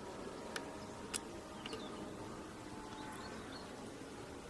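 Faint clicks and light metallic scraping of a lock pick working the pin stack of a pin-tumbler half euro cylinder under tension, with two small clicks about half a second and a second in and a few faint high squeaks of metal on metal.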